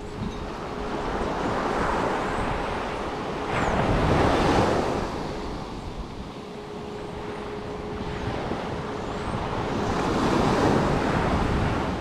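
Sea waves breaking and washing up a sandy beach, swelling up three times, the loudest about four seconds in, with wind buffeting the microphone.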